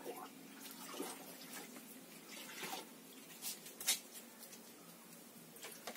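Water splashing and trickling as a cup is dipped into water and lifted out, measuring water to dilute rubber latex, with a few short splashy knocks, the loudest about four seconds in.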